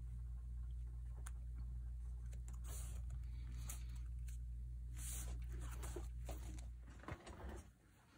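Faint rustling and light tapping of paper being handled, over a steady low hum that stops about seven seconds in.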